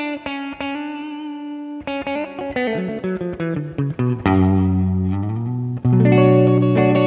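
Telecaster-style electric guitar playing an instrumental passage of picked notes and chords, with a note sliding upward about five seconds in and a fuller chord ringing out near the end.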